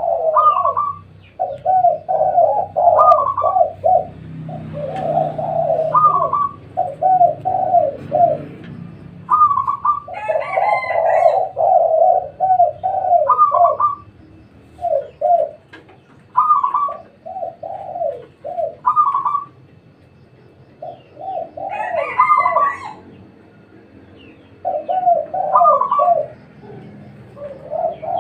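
Several spotted doves (tekukur) cooing over and over. Each phrase is a short higher note followed by a few lower rolling coos, and the phrases overlap one another.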